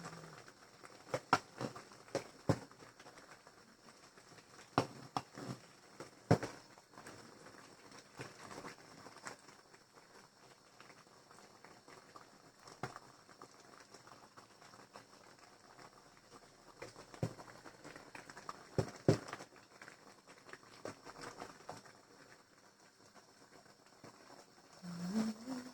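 Cooking sounds: a kitchen utensil knocking and clinking against cookware in scattered sharp strikes, several in the first few seconds and a few more past the middle, over a low steady hiss.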